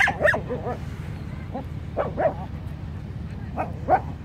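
A dog giving short barks in three quick pairs, about two seconds apart, over a steady low rumble.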